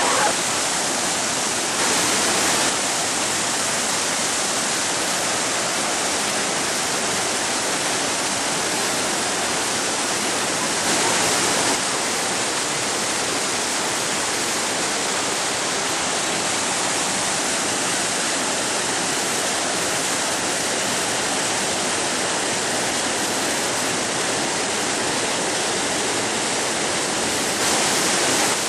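Whitewater rapids on the River Tryweryn rushing loudly and steadily, briefly louder a few times.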